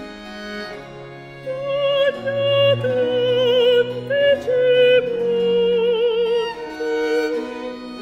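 Slow background music of bowed strings, with low held notes and a high melody sung out with vibrato entering about a second and a half in.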